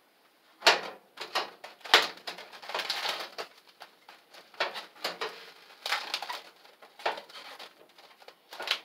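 Plastic wrap crinkling and tearing in irregular bursts as a pack of Brussels sprouts is unwrapped.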